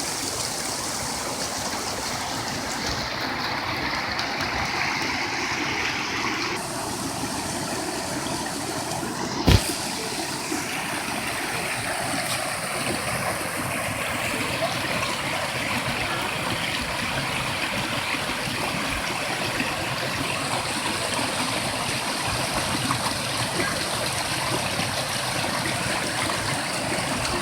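Small waterfall and creek water rushing steadily, with a single brief knock about nine and a half seconds in.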